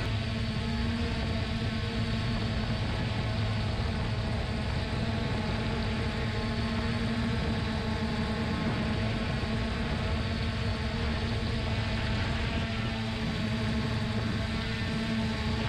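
3DR Solo quadcopter's electric motors and propellers running in flight, picked up by the GoPro mounted on the drone: a steady buzzing hum with small shifts in pitch.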